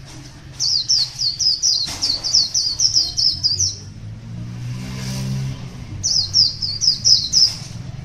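A caged white-eye (Zosterops) singing two quick runs of high, down-slurred twittering notes, a longer one near the start and a shorter one about six seconds in. Between the runs a low rumble swells and fades.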